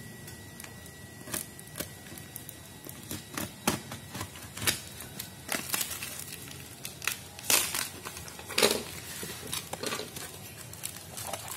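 Snap-off utility knife cutting through the plastic wrap and tape on a cardboard box, with the plastic crinkling and the cardboard scraping as the box is worked open by hand. The sound comes as irregular sharp crackles and scrapes.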